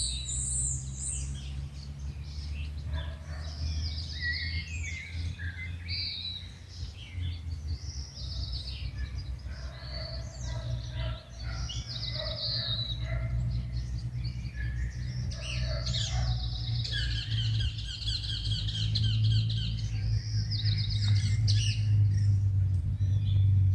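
Several wild birds singing and calling, with short chirps and rapid repeated trills overlapping throughout. Under them is a steady low hum that grows louder in the last few seconds.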